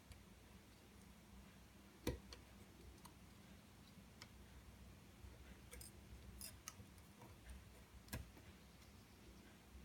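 Near silence broken by a few small, sharp clicks and ticks of tools and iPhone 5 parts being handled during reassembly. The loudest click comes about two seconds in and another near the end.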